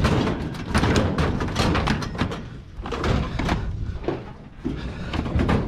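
Scrap being handled and loaded: a run of irregular knocks, clunks and clatters, some with a ringing, metallic tail.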